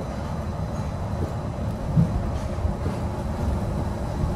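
Disneyland Mark VII monorail running, heard from inside the cabin: a steady low rumble, with a single thump about two seconds in.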